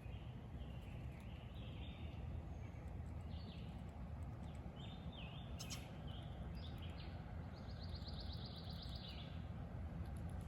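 Several songbirds chirping and singing, with a fast trill of repeated notes about eight seconds in, over a steady low rumble of outdoor background noise. A single sharp click comes near the middle.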